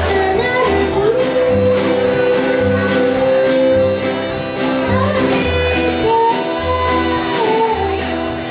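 A small acoustic folk band playing live: upright bass, acoustic guitar, accordion and a snare drum with cymbal, with long held melody notes over a steady beat.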